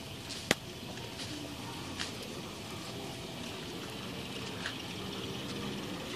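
An old Labrador retriever's claws clicking on paving stones as it walks slowly: a few scattered sharp clicks, the loudest about half a second in, over a steady rushing background.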